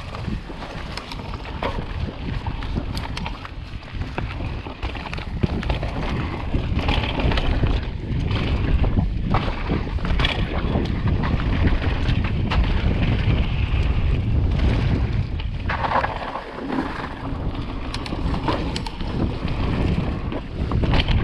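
Mountain bike riding down a dirt singletrack: wind rumbling on the bike-mounted camera's microphone, tyres on dirt and leaf litter, and frequent short rattles and knocks from the bike over bumps and rocks.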